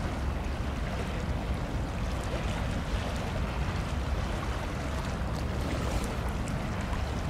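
Steady outdoor wind rumble on the microphone over the wash of choppy sea water, with no distinct engine sound.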